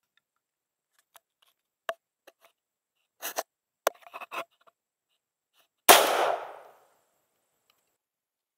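A single shot from a .410 break-barrel shotgun about six seconds in: a sharp report with a tail of echo that dies away over about a second. Before it come a few faint clicks and rustles.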